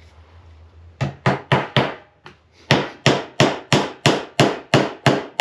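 A hammer driving a small square-head nail into a wooden board: about a second in, a quick run of five light taps to start the nail, then after a short pause a steady string of harder blows, about four a second.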